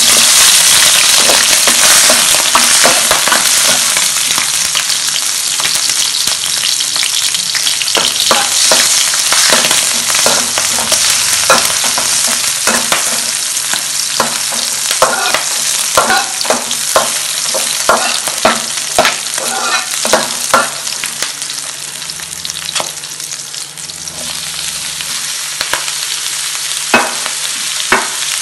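Sliced shallots, garlic and red chillies hitting hot oil in an aluminium wok, sizzling loudly the instant they go in. They are then stir-fried with a metal spatula that scrapes and clicks against the pan, while the sizzle gradually settles.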